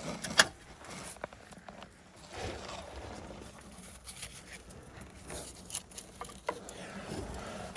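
Scattered light clicks and scraping of hand-tool work, vice grips being worked on a brake line fitting, with one sharper click about half a second in.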